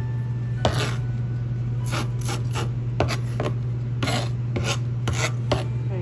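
Serrated Farberware chef's knife chopping leeks on a plastic cutting board: a dozen or so uneven strokes, each a short rasping scrape down onto the board, over a steady low hum.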